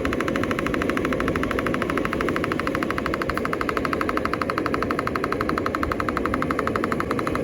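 Ventilation fan running with a rapid, even clatter of about ten clicks a second over a low rushing noise.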